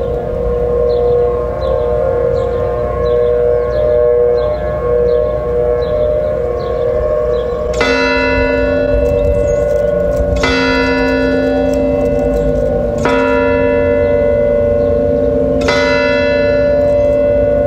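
Several outdoor tornado warning sirens held at a steady tone during a siren test. About eight seconds in, a bell strikes four times, about two and a half seconds apart, each stroke ringing on over the sirens. Wind rumbles on the microphone.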